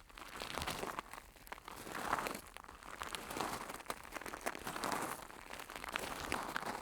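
Very slow footsteps crunching on large gravel: about five separate steps, roughly one every second and a half, each a gritty scrunch of stones shifting underfoot.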